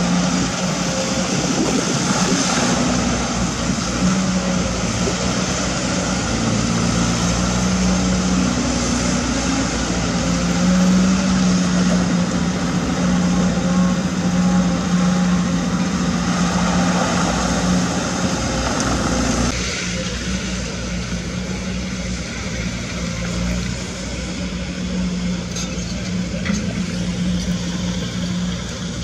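Caterpillar 320D2 GC excavator's diesel engine running steadily under load as it digs and swings. About two-thirds through, the sound changes abruptly to a lower, quieter engine note.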